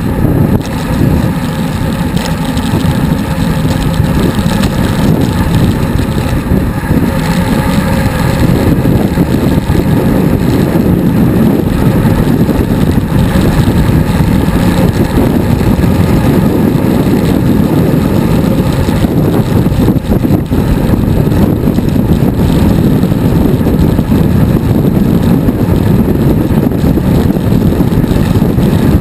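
Wind buffeting the microphone of an action camera on a moving bicycle, a loud steady rumble.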